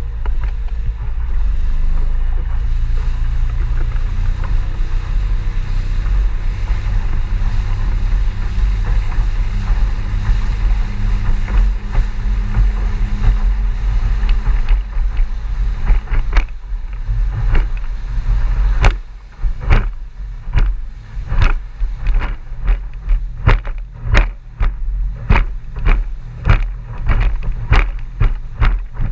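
Small boat's outboard motor running at speed, heard as a steady low drone muffled by a waterproof camera housing. Past the middle the hull starts slamming into wind chop, a sharp bang about every two-thirds of a second over the engine.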